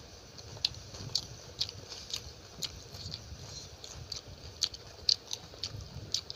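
Close-up chewing of a mouthful of chicken curry and rice, with wet mouth clicks and smacks about twice a second.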